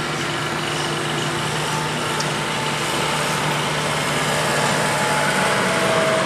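SAME farm tractor's diesel engine running steadily as the tractor rolls slowly forward, growing slightly louder toward the end.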